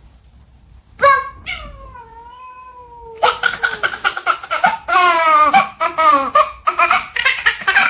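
A cat's long drawn-out meow about a second in, its pitch sliding down, followed by a rapid run of loud, broken calls.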